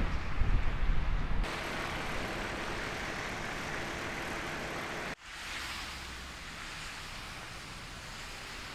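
Wind buffeting the microphone with a heavy low rumble for about the first second and a half, then steady, even outdoor noise of a snowstorm: wind and a hiss like distant street traffic. The sound changes abruptly twice, at about one and a half seconds and about five seconds in, as the footage cuts between recordings.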